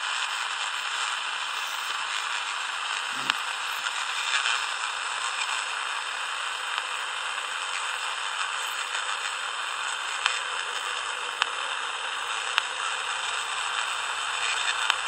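Steady radio static hissing from the speaker of a Danita 86 six-channel CB radio, tuned to a channel with no voice on it, with a few sharp clicks scattered through.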